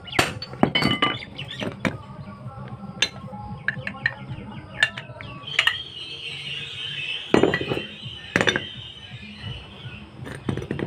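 Hammer blows and metal-on-metal clinks on a truck propeller shaft's universal joint while its cross is being changed, irregular and ringing, with two heavier blows in the second half.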